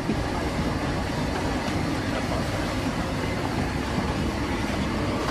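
Steady low roar of a gas burner under a large stall wok heating oil.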